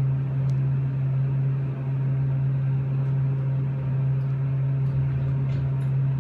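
Elevator machinery giving a steady low hum with a rumble beneath it, as the car sits at the first floor.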